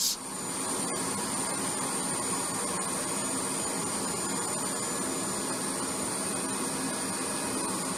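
Boeing 747-8F's turbofan engines running steadily: an even rush with a thin, steady high-pitched whine above it.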